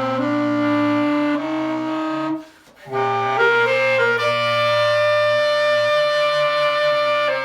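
Saxophone played with a growl: the player hums a steady low voice note into the horn while playing sustained notes that step up and down above it. There is a short break for breath about two and a half seconds in.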